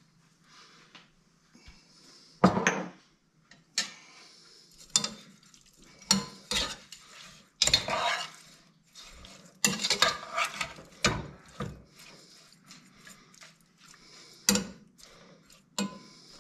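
A metal spoon stirring food in a pot, scraping and clinking against the pot at irregular intervals, over a low steady hum.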